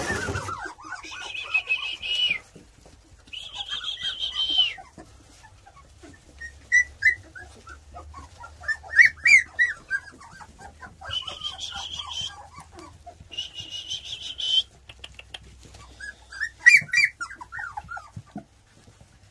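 A gundog whistle blown as a recall signal at feeding time: two long, steady, high blasts, then two more about ten seconds later. Young Labrador retriever puppies whine and yelp throughout.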